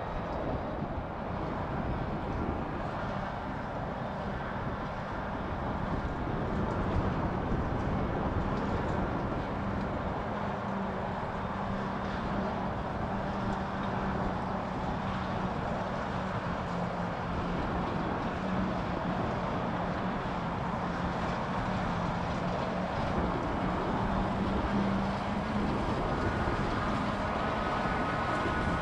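Claas tractor running steadily as it pulls a twin-rotor hay rake through mown grass, with a steady low engine hum.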